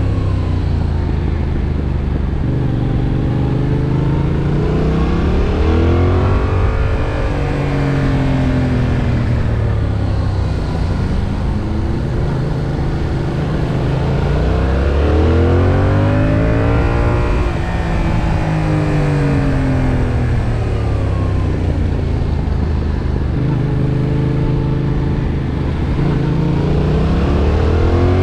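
2021 Yamaha MT-07's 689 cc parallel-twin engine under way, its note repeatedly climbing as it revs up and falling back every few seconds, like a motorcycle accelerating and slowing through a run of corners.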